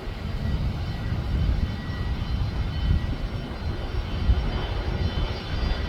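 Airplane engine running at a steady distance: a low rumble with a faint, thin high whine held steady above it.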